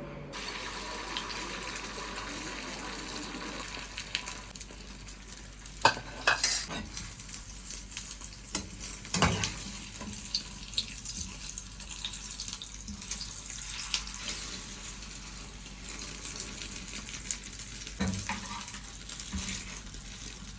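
Kitchen sounds: a steady sizzling hiss with scattered clinks and knocks, the sharpest a few seconds apart.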